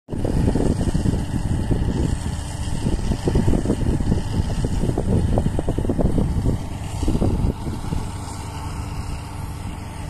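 Combine harvester running as it cuts wheat, a steady low mechanical rumble with rough, uneven surges. It grows somewhat quieter after about seven seconds as the machine pulls away.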